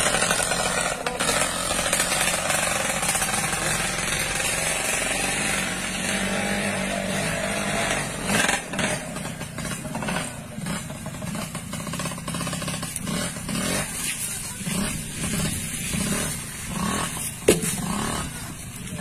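Small motorcycle engines running, loudest over the first eight seconds or so, then quieter and more broken up, with one sharp knock about a second before the end.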